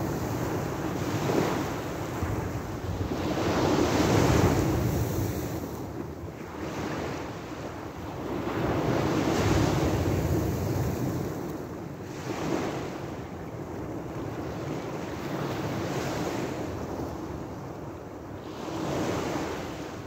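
Small sea waves breaking and washing up the beach, the surf swelling and falling back every few seconds.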